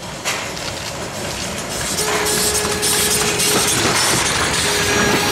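TKh 05353 steam tank locomotive and its train of vintage coaches passing close by. The running noise of the engine and rolling stock grows louder and then holds steady, with a thin steady tone sounding twice: from about two seconds in, and again near the end.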